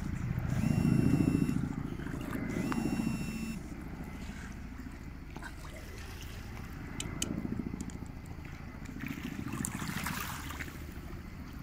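Distant helicopter over the sea, a low pulsing rotor drone, with water lapping at the shore. Two short high-pitched whistle-like tones sound about a second in and about three seconds in.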